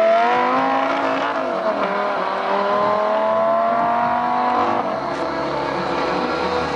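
Audi R8 with a loud Larini aftermarket exhaust accelerating hard away down the strip, its engine note rising through the gears: one upshift drops the pitch about two seconds in, it climbs again, then holds a steadier note near the end.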